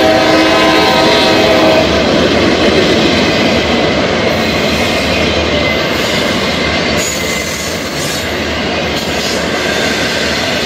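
Norfolk Southern intermodal freight train rolling past, its cars making a loud, steady rolling noise on the rails. A locomotive air horn sounds a chord that cuts off about two seconds in.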